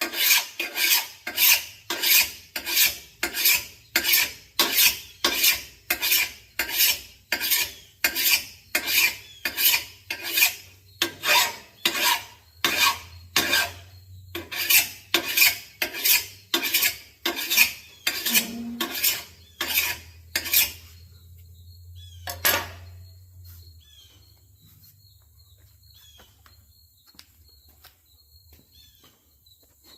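Steel lawn mower blade being sharpened: rhythmic rasping strokes against the cutting edge, about two a second, which stop about 21 seconds in, followed by one last stroke a little later.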